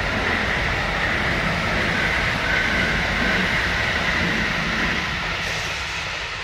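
Kintetsu electric train, a ten-car rapid express, running past on the line with steady running and wheel noise. The noise begins to fade near the end as the train moves away.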